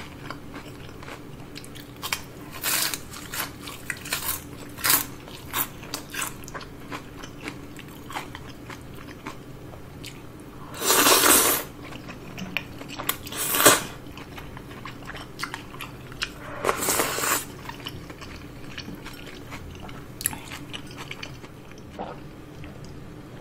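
Close-miked crisp crunching and chewing of fried shrimp tempura, a run of short crackly bites. About halfway through, udon noodles are slurped loudly, followed by two more slurps.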